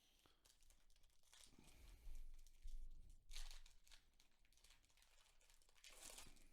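A trading card pack's wrapper crinkling and tearing as it is opened by hand, faint, in several short bursts, with a few soft handling bumps.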